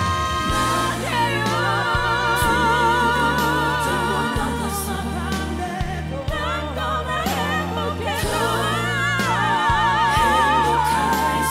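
Live performance by a female vocal group with a backing band: several voices hold long notes in harmony with wide vibrato over a steady bass line.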